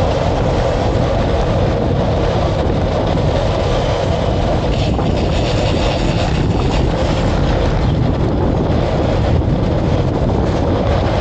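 Steady rumble of travel at speed with wind on the microphone, continuous and unbroken.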